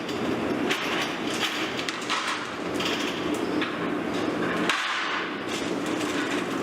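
A steady background hum and noise, with a few light knocks and clatters.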